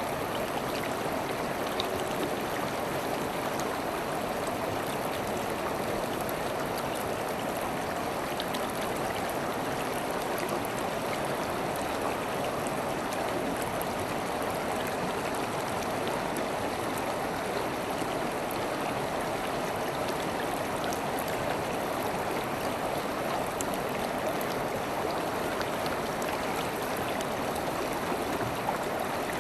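River water flowing steadily, a continuous rushing with small splashes and trickles.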